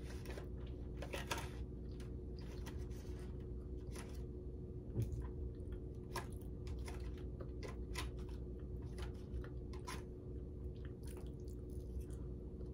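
Close-up chewing of a mouthful of apple pie: soft crunching with scattered sharp mouth clicks, over a steady low hum.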